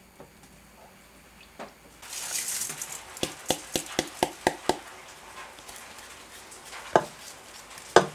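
Washed rice poured from a plastic bowl into an electric pressure cooker's inner pot. About two seconds in comes a short rushing pour, then a quick run of taps as the bowl is knocked and patted to free the last grains, and two louder knocks near the end.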